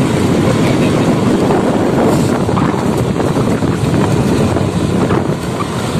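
Loud, steady wind rumble buffeting the microphone as the camera moves along a dirt track.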